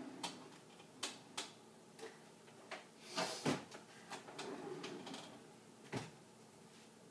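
Clatter of things handled on a kitchen counter: a string of short clicks and knocks as objects are picked up and set down, with a louder cluster about halfway through, a soft rustle after it, and one more knock near the end.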